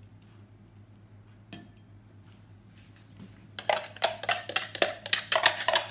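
A low hum at first, then about three and a half seconds in a rapid run of clinks with a slight ring, about six a second: a metal whisk beating and scraping against a jug of egg custard.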